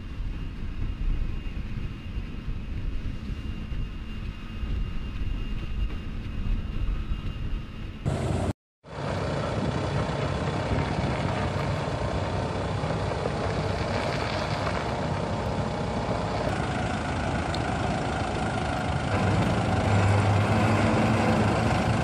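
Heavy vehicle engine running steadily, a low engine noise with hiss over it. The sound cuts out completely for a moment about eight and a half seconds in, then carries on slightly louder.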